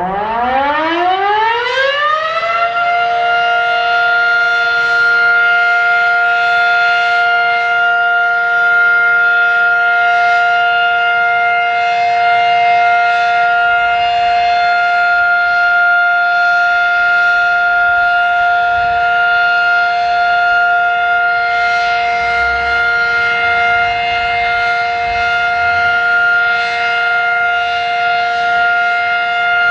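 Fedelcode Type Mach 5 outdoor warning siren winding up, its pitch rising over the first two to three seconds, then holding a loud steady tone: the opening of its two-minute steady alert during a siren test.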